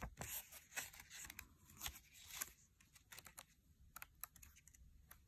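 Faint paper rustles and flicks from the pages of a small paperback booklet being leafed through by hand, as a scattered run of brief ticks.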